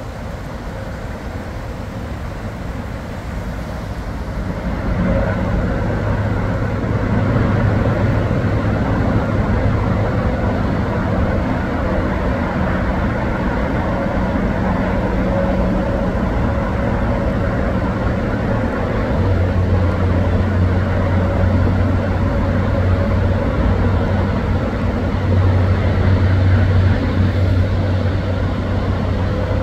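Steady road-traffic noise from a nearby freeway, with a low engine drone that grows louder about five seconds in and holds to the end.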